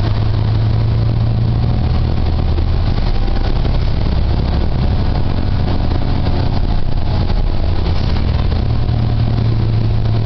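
A New Flyer XD40 Xcelsior city bus's Cummins ISL9 inline-six diesel engine and drivetrain running, heard from inside the passenger cabin as a steady drone with rattle and rumble. The low engine hum weakens about a third of the way in and grows strong again near the end.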